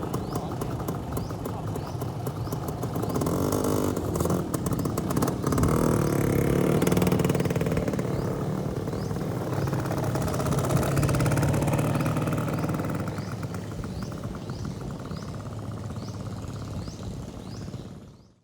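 Vespa scooter's engine running as it rides, its pitch shifting, louder through the middle and easing off later before it cuts off.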